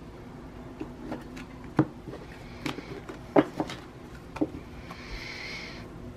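Tarot cards being handled and laid on a table: scattered light taps and knocks, and a brief swish of cards sliding about five seconds in.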